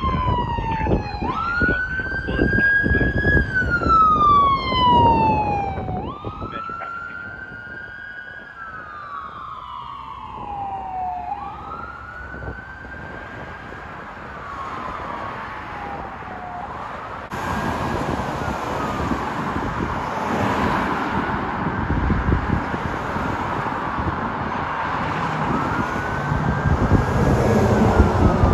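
Ambulance siren on wail, rising quickly and falling slowly about every five seconds, loud with vehicle noise as the ambulance passes and then fading. After an abrupt change partway through, a second ambulance's wail siren sounds over engine and road noise, growing louder near the end.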